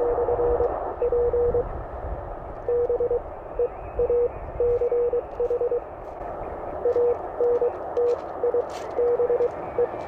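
Morse code (CW) signal received on an Elecraft K1 transceiver: a single steady mid-pitched tone keyed in dots and dashes over steady receiver hiss. It is the other station's reply addressed to the portable beach operator, copying as "R FB GIL /P BEACH".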